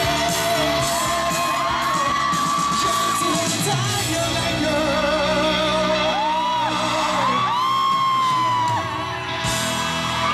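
Live rock band playing, with loud singing and high yells and whoops over the music.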